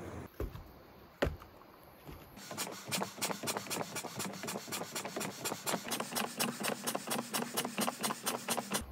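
Rapid, even footsteps: feet in sandals stepping in place on a wooden deck, about five taps a second. A couple of single clicks come before the stepping starts.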